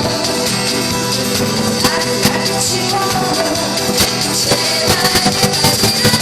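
Song performed live: a singer's voice over instrumental accompaniment with a steady beat.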